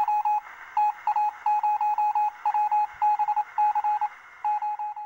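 Morse-code beeping: one steady tone keyed on and off in short and long pulses over a band of static hiss, a news-alert sound effect.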